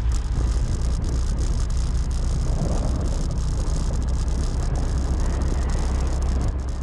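Motorbike riding noise picked up by a helmet- or bike-mounted GoPro Hero 7: a steady engine and road rumble with a light, uneven clicking on top. The clicking is a rattle from inside the camera itself, not from its mount, and it spoils the recorded ambient sound.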